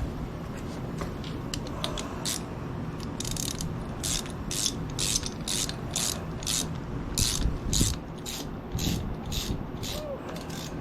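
Ratchet wrench clicking in a steady series, about two clicks a second, as a bolt is worked backward to chase damaged threads.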